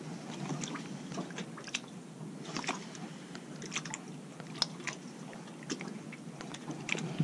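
Faint, irregular small clicks and light crackling close to the microphone, a few a second, over a low, steady hiss.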